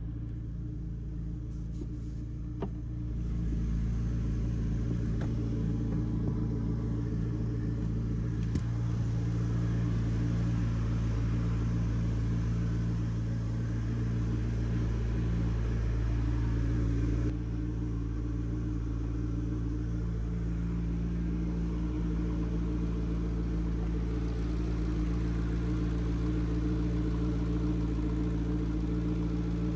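McLaren MP4-12C's twin-turbo 3.8-litre V8 idling steadily. It gets louder about three seconds in and drops back a little about seventeen seconds in.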